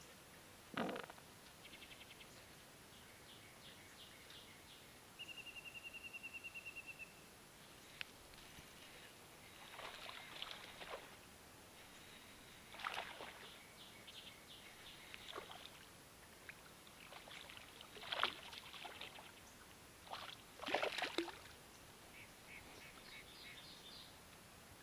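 A small bass being reeled in and landed, heard as several brief splashy bursts, the loudest two near the end, over songbirds chirping and one short rapid trill.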